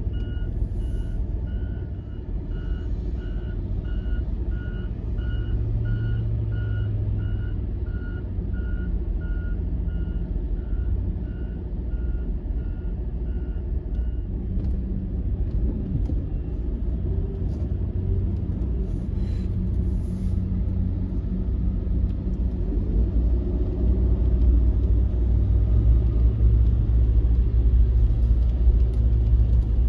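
Heavy snow-clearing equipment at work: a reverse backup alarm beeps steadily, about three beeps every two seconds, and stops about halfway through. Underneath runs the low rumble of a big engine, which grows louder near the end.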